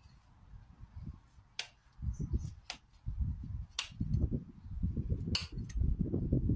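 Hoof knife paring a horse's hoof: four sharp clicking cuts, roughly a second apart, over a low rustling rumble that grows louder toward the end.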